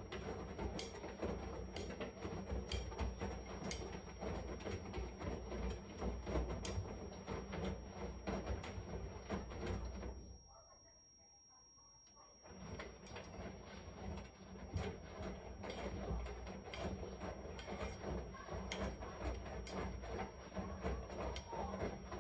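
Washing machine running through its wash, the drum turning with a low rumble and many small clicks and knocks. It stops for about two seconds midway, then starts turning again.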